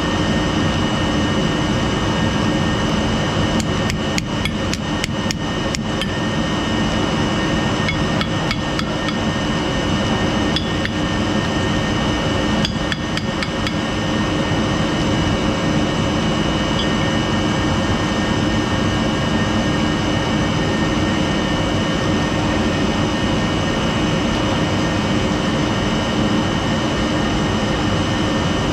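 Industrial machinery running with a steady noise and a constant high whine, very noisy. Over it come clusters of quick sharp taps: a run of them a few seconds in, and shorter runs around eight and thirteen seconds in.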